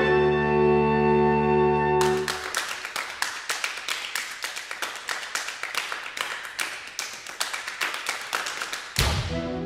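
Saxophone octet holding a sustained chord that stops about two seconds in. The players then clap their hands in a quick, steady rhythm for several seconds, and the saxophones come back in together near the end.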